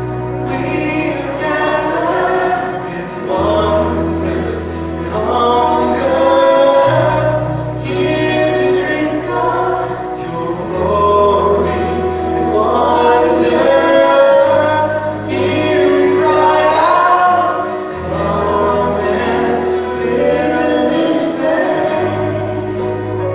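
Live contemporary worship band playing a song: voices singing the melody over electric guitar, keyboard, bass and drums, with sustained low bass notes changing every few seconds.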